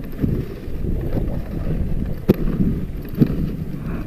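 Dog sled running over a packed snow trail: a steady low rumble of runners on snow mixed with wind on the microphone, with a couple of sharp knocks from the sled a little past halfway.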